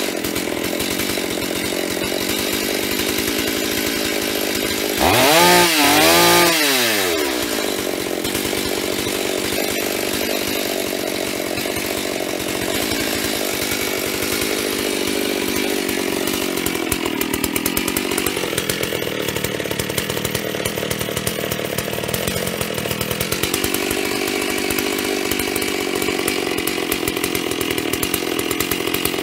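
FarmerTec G388 two-stroke chainsaw, a Stihl MS380 clone, running at idle, revved up and down twice about five seconds in. Midway its note sags and drops lower for several seconds, then picks up again: it is being choked but won't die, because its off switch does not stop the engine.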